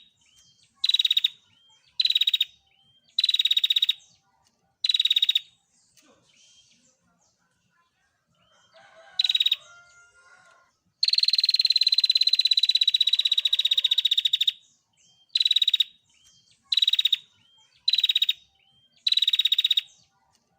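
Female prenjak (prinia) giving its rapid buzzy trilled 'tir' calls: short rattles repeated about once a second, then one long unbroken trill of about three and a half seconds past the middle, then short rattles again.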